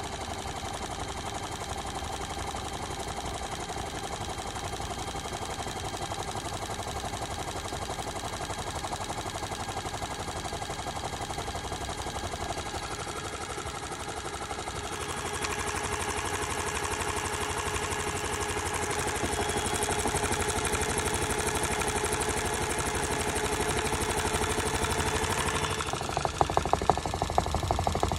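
Modified toy Miele W1 washing machine on a spin cycle, its motor and drum running with several steady tones and speeding up in steps about halfway through. Near the end, rapid knocking and rattling sets in as the badly unbalanced load shakes the machine on its suspension.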